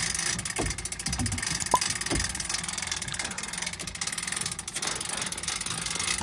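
Boat trailer's hand winch being cranked to pull a small motorboat up onto the trailer, giving a few knocks and clicks, one sharp click about two seconds in, over a steady rushing background.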